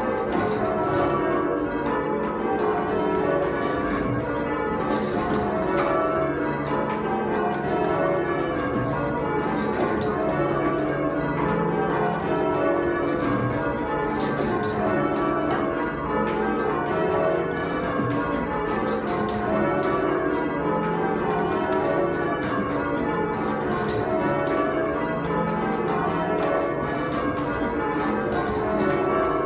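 Full-circle change ringing on a heavy ring of eight church tower bells (tenor 25 cwt, in C#), the bells striking one after another in steady, continuous descending rows.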